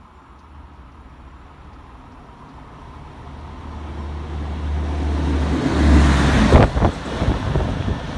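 A rail vehicle passing through a station at speed: its noise builds as it approaches and is loudest about six seconds in. As it goes by there is a quick run of sharp wheel knocks over rail joints.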